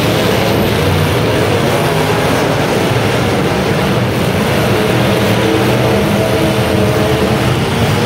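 Several demolition derby cars' engines running loudly at once, their pitches drifting up and down as the drivers rev.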